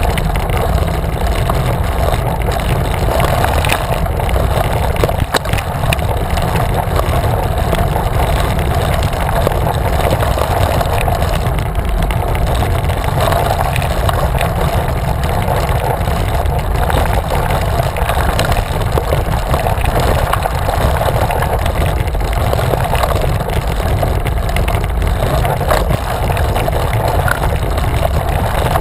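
Wind buffeting the handlebar camera's microphone on a moving road bicycle, with tyre rumble on rough, patched asphalt: a loud, steady low rushing noise, with a few faint knocks from bumps in the road.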